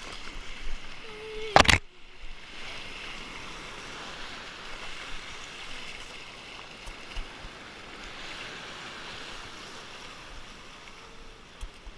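Shallow surf foaming and rushing around a small board with the microphone close to the water. A loud sharp splash or knock lands about one and a half seconds in, then the water rushes steadily.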